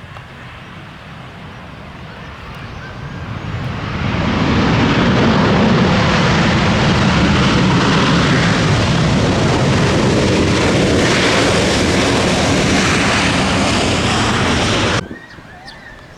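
Jet airliner's engines passing close by: the noise builds over a few seconds to a loud, steady rushing sound, then cuts off abruptly near the end.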